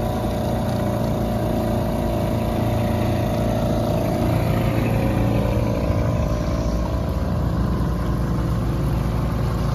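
Small outboard motor on a panga running steadily under way, with water and wind noise; its tone shifts about six seconds in.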